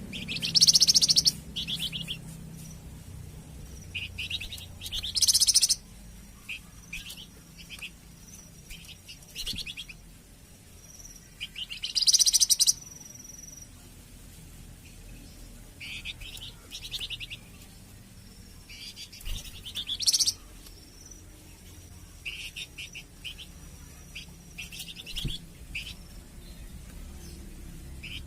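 Songbird chattering in short bursts of rapid high trills, about a second each, repeated every three to four seconds over a faint low background hum.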